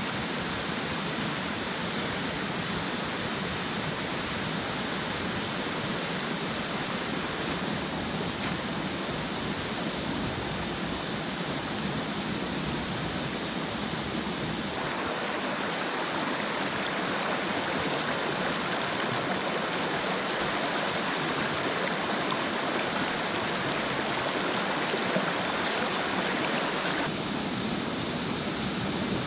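Steady rush of river water, an even hiss with no single events, changing abruptly in tone about halfway through and again near the end where the recording is cut.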